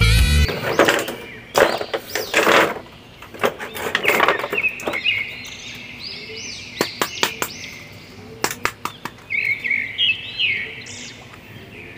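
Funk-style music cuts off about half a second in. Then clear plastic packaging crinkles and clicks in bursts as a plastic action figure is handled, with birds chirping in the background.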